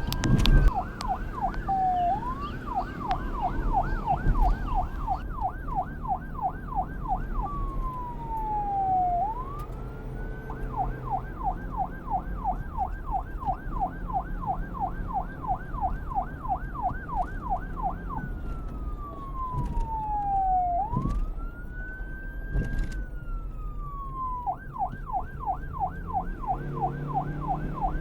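Police car electronic siren switching between a slow rising-and-falling wail and a fast yelp of about four sweeps a second, over a low engine and traffic rumble. A sharp knock sounds about half a second in.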